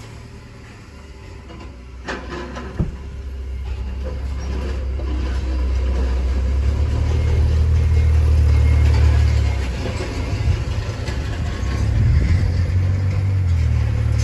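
Deep vehicle rumble from driving slowly over a rough, bumpy road. It swells louder through the middle, with two sharp knocks about two and three seconds in.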